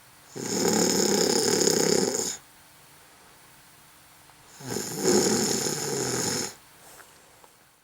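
Snoring: two long snores of about two seconds each, the second coming about four and a half seconds after the first, with quiet between them.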